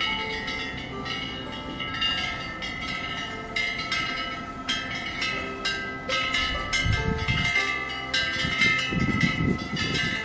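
Metal temple wind bells (pungyeong) ringing over and over at an irregular pace as the spring wind swings their clappers. Gusts of wind rumble on the microphone twice, in the middle and near the end.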